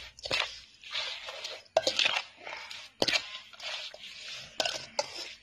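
A spoon tossing shredded green mango salad in a stainless steel bowl: repeated wet swishes, with several sharp clinks of the spoon against the metal bowl.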